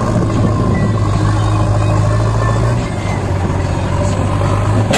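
Diesel engines of a JCB backhoe loader and a Powertrac tractor running steadily while the loader lifts a bucket of soil, the note dipping briefly about three seconds in. A short sharp knock comes right at the end.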